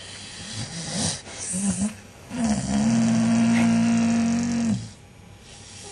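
Staffordshire bull terrier snoring in its sleep: a few short, noisy breaths, then one long, steady, pitched snore lasting over two seconds that stops abruptly.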